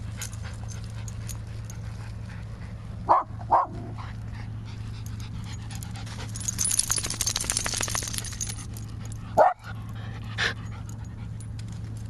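Small miniature schnauzer–Maltese mix dog barking at a fire hydrant: two sharp barks about three seconds in, another near nine and a half seconds and a fainter one a second later. A stretch of scratchy noise comes in between, over a steady low hum.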